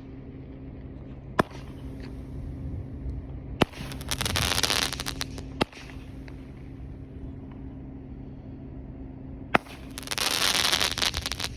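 Small consumer firework cake firing mine shots: sharp single launch bangs a couple of seconds apart, two of them followed by about two seconds of dense crackling.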